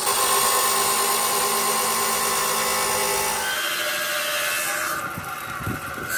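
Electric abrasive cut-off saw grinding through a steel plate: a steady, loud whine from the spinning disc. Its sound changes character about three and a half seconds in.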